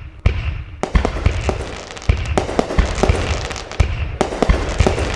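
Fireworks sound effect: a rapid, irregular run of bangs, about two a second, with crackling between them.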